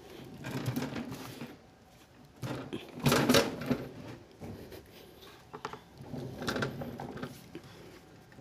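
Irregular clattering and rustling handling noise as a hand-held phone camera is carried around an equipment rack, in three short spells, the loudest about three seconds in.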